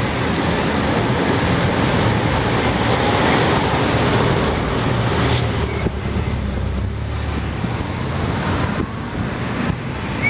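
Steady road traffic noise with a low rumble, picked up by a camera mounted on a moving bicycle's handlebars.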